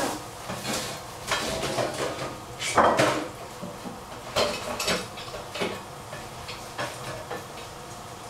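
Dishes and utensils clinking and clattering as they are handled and set down during kitchen clean-up. It is a string of separate knocks, the loudest about three seconds in, thinning out toward the end.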